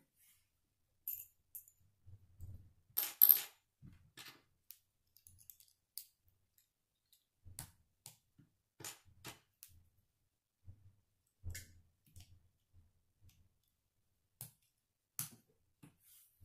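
Plastic K'nex rods and connectors clicking and snapping together as they are fitted by hand, at irregular intervals with faint low knocks between. The loudest is a quick double snap about three seconds in.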